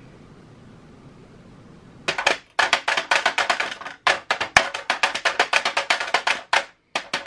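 Plastic chocolate mold knocked rapidly against the sheet pan, a fast even run of sharp taps starting about two seconds in, with short pauses, settling the freshly piped ganache into the chocolate shells.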